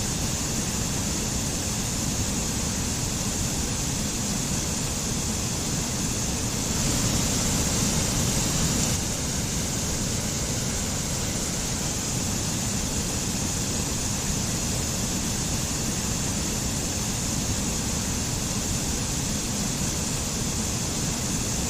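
Mountain stream water rushing over a small waterfall in a steady, even hiss, swelling slightly louder for about two seconds around seven seconds in.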